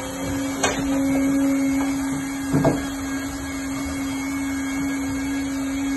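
LIUDU TOP3400C automatic hot-air PVC welding machine running: a steady motor and blower hum with one strong unchanging tone. A sharp click about half a second in and a short knock near the middle sound over it.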